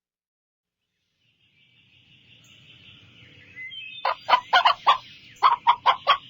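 Chickens clucking: a quick run of short, sharp calls starting about four seconds in, over a faint hiss that fades in after a second of silence.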